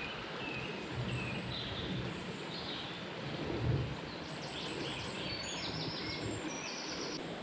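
Shallow, fast river water rushing steadily, with small songbirds chirping and trilling over it. A dull low bump comes about halfway through.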